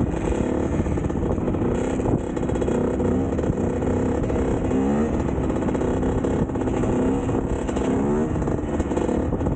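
KTM two-stroke dirt bike engine running under the rider, with two quick throttle blips where the pitch rises sharply, about five and eight seconds in.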